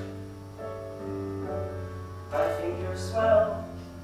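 Piano-led pit-band accompaniment for a stage musical, playing held chords, with a louder melodic phrase over it after about two seconds.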